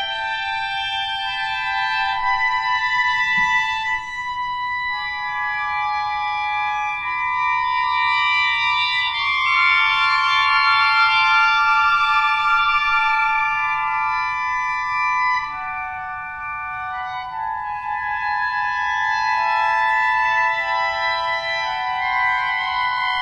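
Clarinet ensemble holding a dense cluster of overlapping high sustained notes. Single voices drop out and enter at staggered times, so the chord keeps slowly shifting.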